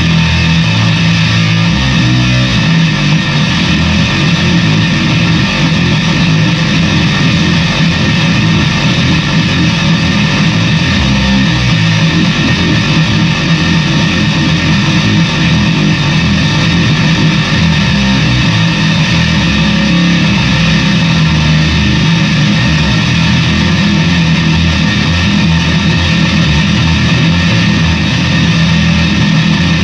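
Fender Squier VI six-string bass played continuously through a stacked Plasma pedal and RAT distortion, giving a thick, heavily distorted, buzzing fuzz tone. The sound stays at a steady loud level throughout.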